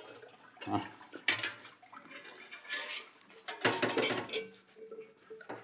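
Metal pots and utensils clinking and clattering at a makeshift sink, with a little water splashing as water is poured for washing.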